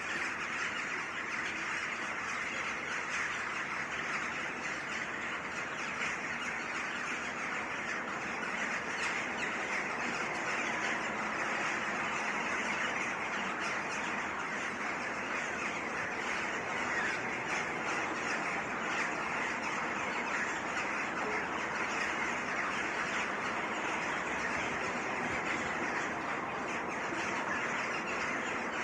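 Chorus of many birds in a tree calling at once: a dense, unbroken mass of overlapping calls that holds steady throughout.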